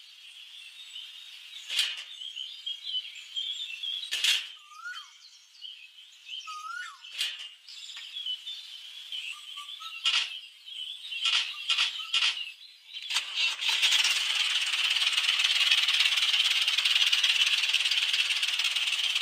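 Sharp clicks and taps every second or two over faint bird chirps, then, about two-thirds of the way in, a steady loud hiss sets in and holds.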